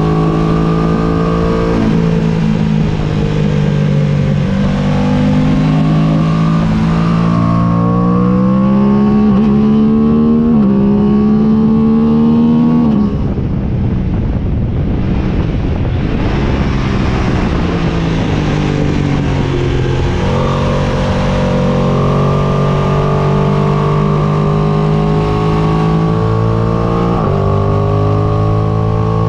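Aprilia sport bike engine under hard acceleration on track, its pitch climbing through the revs with steps at the gear changes. About 13 s in the throttle closes and the engine note drops into mostly wind rush, then it pulls hard again with further gear changes.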